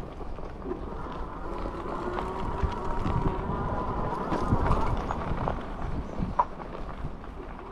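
Electric cargo bike rolling over a dirt and gravel surface: tyres crunching and the bike knocking and rattling irregularly over bumps, with a faint steady whine from its motor.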